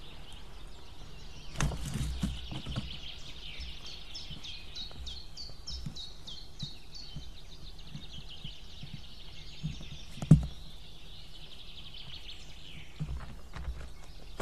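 White-tailed eaglet chicks giving thin, high begging cheeps, many in quick succession, while an adult feeds them. There are soft knocks in the nest and one sharp loud thump about ten seconds in.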